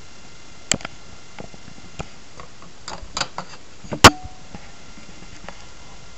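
Handling noise: a scattered series of light clicks and knocks, with one sharp, much louder knock about four seconds in.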